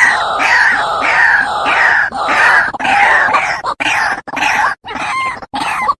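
White-breasted waterhen (dahuk) calling loudly: a dense run of harsh, screeching, croaking calls that breaks into shorter separate calls with brief gaps in the last couple of seconds.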